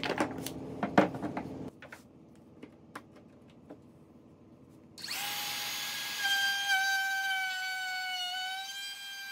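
Workshop tool sounds: a few sharp knocks and clicks over a hum that stops after about a second and a half. A few seconds later a power tool's motor starts and runs with a steady high whine, its pitch sagging slightly now and then.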